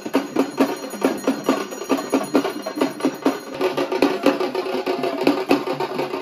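Fast, rhythmic drumming of about five strikes a second, with a steady held note joining about halfway through.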